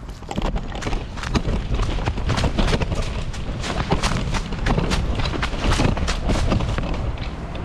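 Fast running footsteps crunching through dry fallen leaves, about three steps a second, starting just after the beginning. A low rumble of wind and handling noise runs under them on the jostled body-worn camera.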